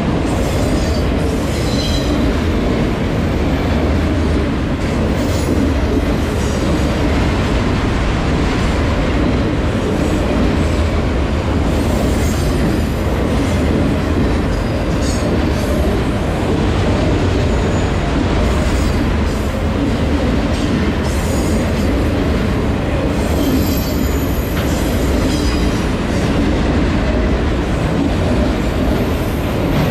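Freight train of autorack cars rolling past a grade crossing: a loud, steady rumble of steel wheels on rail, with short high-pitched wheel squeals now and then.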